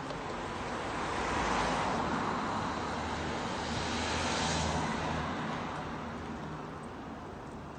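Road traffic passing on the road alongside: two vehicles go by in turn, the first swelling about a second in and the second around four seconds in with a low engine hum, then the noise eases off.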